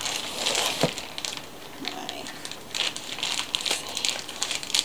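Plastic courier satchel crinkling and rustling as it is handled and lifted upright, in irregular crackly bursts.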